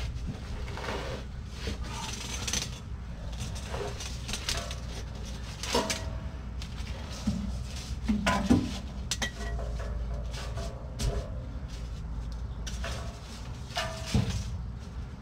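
Blue ratchet strap and new muffler being handled under a pickup: scattered metal clinks, rattles and knocks of the strap's hooks and buckle against the exhaust, with a steady low rumble underneath.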